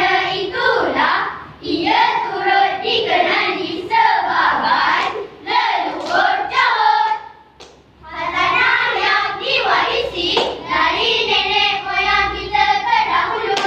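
Children's choir performing bicara berirama, a Malay rhythmic choral recitation: many young voices chanting and singing together in phrases. There is a brief pause about eight seconds in, and long held notes near the end.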